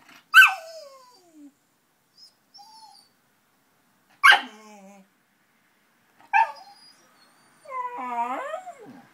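Keeshond puppy vocalizing to ask a cat to play: three sharp, short calls a couple of seconds apart, each sliding down in pitch, then a longer wavering whine-like call near the end.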